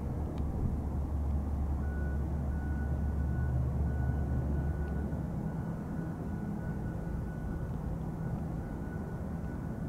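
Single-engine turboprop airplane approaching to land: a steady low drone with a thin, steady whine that comes in about two seconds in.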